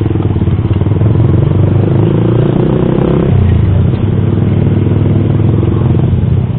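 Yamaha MX King 150's single-cylinder four-stroke engine running through a custom aftermarket exhaust. The note is steady and low, and the pitch shifts slightly about three seconds in.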